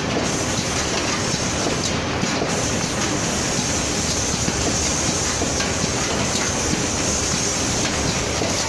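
Automatic cartoning machine running while it packs glazed curd snack bars one to a carton: a steady, dense mechanical clatter from its conveyor and carton mechanism.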